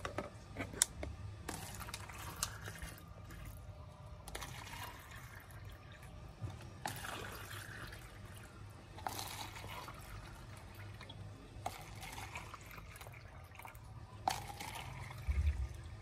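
Water poured from a saucepan into clear plastic cups, one cup after another, in a series of short pours every two or three seconds.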